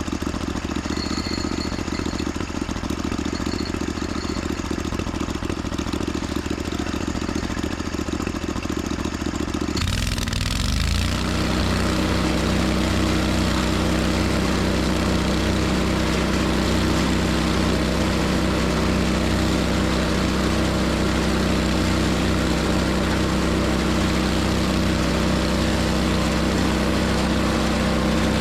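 An engine running steadily. About ten seconds in, its note shifts abruptly, gliding briefly, then settles into a steady, lower-pitched run.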